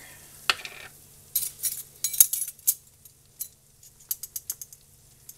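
Metal tablespoon clinking and scraping against a flour container while scooping out flour, a string of sharp clinks with lighter ticks near the end.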